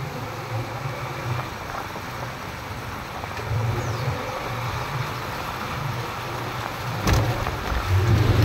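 Motorcycle engines running at low speed in slow street traffic, with an uneven low rumble and a short knock about seven seconds in.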